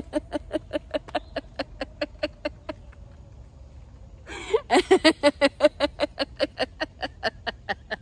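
A woman laughing in quick, even 'ha-ha-ha' pulses, about five a second. This is deliberate exercise laughter, shaken out from the diaphragm. It comes in two bouts with a short pause in between, and the second bout starts louder.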